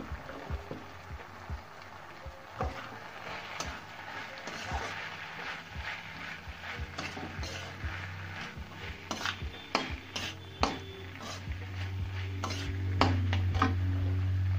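Metal spatula stirring and scraping shredded cabbage around a wok, clicking repeatedly against the pan over the sizzle of the vegetables frying. A low steady hum runs underneath and grows louder in the last two seconds.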